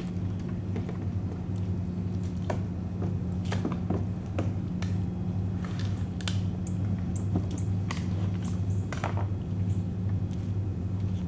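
Scattered light knocks and clicks of a homemade PVC-and-steel kayak dolly being slotted into the stern scupper holes and the kayak being tipped up onto its wheels, over a steady low hum. Short high chirps come in the second half.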